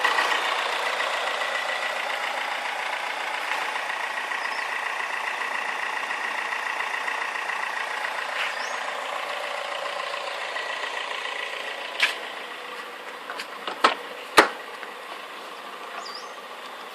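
Toyota 4A-GE 20V Silvertop inline-four idling, slowly getting quieter, with the constant clicking the owner has yet to trace. Three sharp knocks come near the end.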